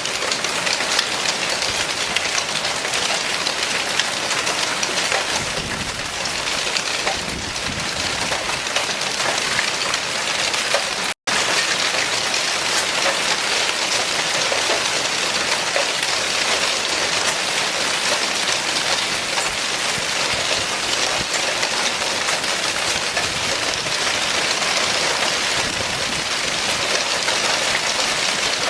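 Hail and rain pelting down onto hard surfaces: a dense, loud clatter of countless small hits. The sound drops out for an instant about eleven seconds in, then resumes just as heavily.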